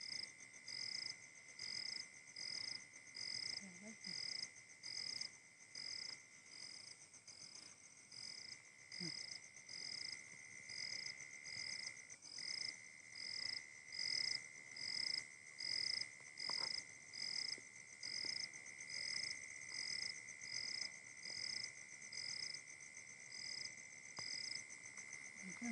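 Night insects calling: a steady high trill with a pulsed high chirp repeating evenly about three times every two seconds.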